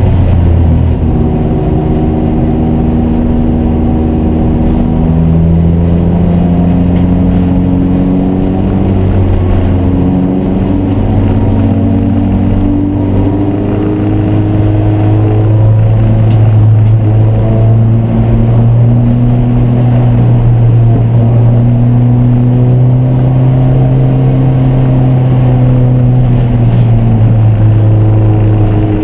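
Racing car engines running loud and steady, several engine notes overlapping and their pitch drifting slowly up and down.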